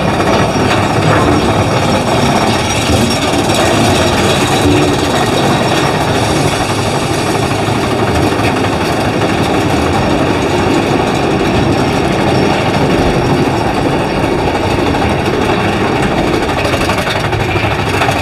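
Big Thunder Mountain Railroad mine-train roller coaster running along its track, heard from on board: a loud, steady rumble of the cars on the rails, without a break.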